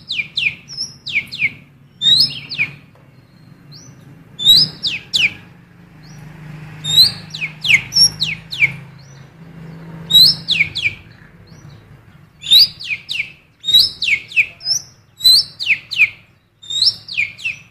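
Cucak keling biru (Asian fairy-bluebird) singing female oriental magpie-robin calls it has learned. The song comes as repeated clusters of three or four sharp, high whistles that sweep downward, a cluster every couple of seconds, over a faint low hum.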